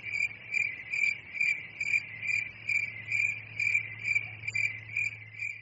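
Cricket chirping in a steady rhythm, about two chirps a second.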